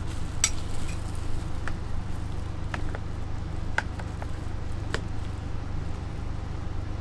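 A handful of light clicks and taps from food-prep handling, spread about a second apart over a steady low hum.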